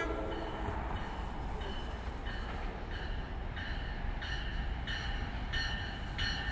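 NJ Transit train approaching with a steady rumble, its bell ringing about once every two-thirds of a second and growing louder.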